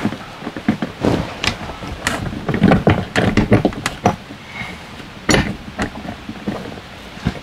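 Irregular metal clicks, knocks and clatter of hands handling a slide-room cable pulley and its bracket, with the loudest knock a little past five seconds in.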